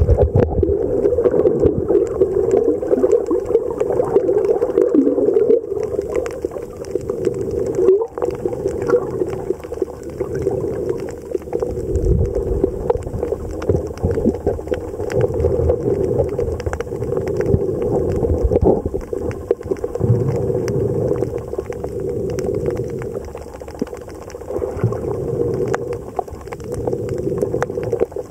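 Underwater ambience picked up by a camera in a waterproof housing: a steady muffled hum with low rumbling swells and scattered crackling clicks.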